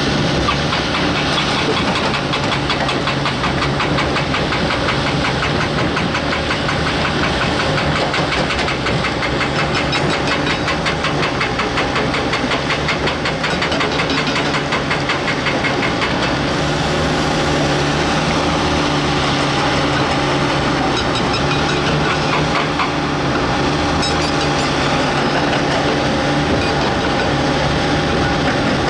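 Heavy diesel engine of a working excavator running steadily, with a dense, rapid clatter over it; the engine note shifts slightly about halfway through.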